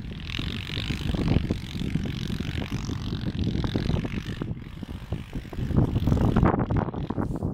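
TGB Target 550 quad bike running across snow some distance away, with wind buffeting the microphone. It grows a little louder about six seconds in.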